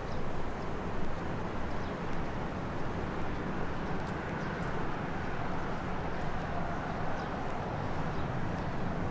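Steady outdoor ambience: a constant low rumble with a few faint ticks, and no single source standing out.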